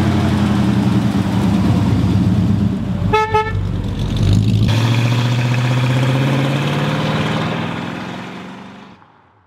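Dodge Charger's V8 running as the car rolls slowly across the lot, with a short horn toot about three seconds in. The engine note then rises as the car pulls away, and the sound fades out near the end.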